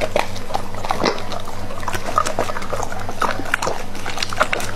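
A Doberman pinscher eating raw meat, with wet chewing and smacking in irregular bites. A steady low hum runs underneath.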